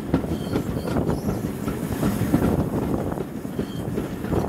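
Steam-hauled passenger train running along the line, heard from an open carriage window: a steady rumble with the wheels knocking and rattling irregularly over the rails, and wind buffeting the microphone.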